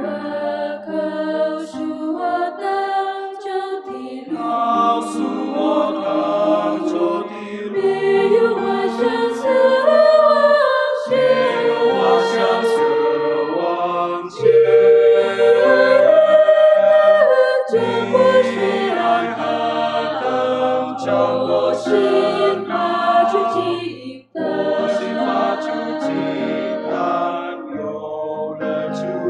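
Mixed choir of women's and men's voices singing a Mandarin hymn in harmony, swelling loudest around the middle, with a very brief break about three-quarters of the way through.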